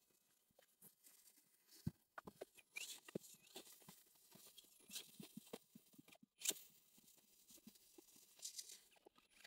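Near silence broken by faint, scattered knocks, scrapes and crackles as a small homemade trike is walked over a wooden plank and forest ground, with sharper knocks about two seconds in and again about six and a half seconds in.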